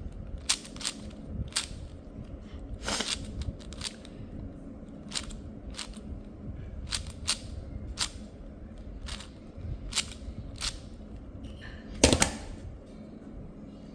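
A plastic puzzle cube being turned by hand: sharp clicks of single turns at irregular spacing, about one a second, with a louder cluster of clacks about twelve seconds in.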